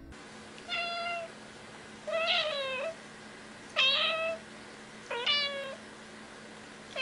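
Kitten meowing repeatedly: five short, high meows about a second and a half apart, the last starting near the end.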